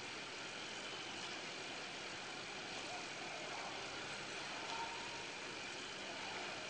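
Faint steady background noise in a large hall, an even hum and hiss with no distinct events.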